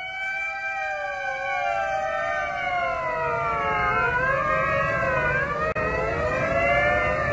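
Ambulance sirens wailing up and down in pitch, a second siren overlapping the first from about three seconds in, growing louder as they approach: the Hatzalah rescue arriving.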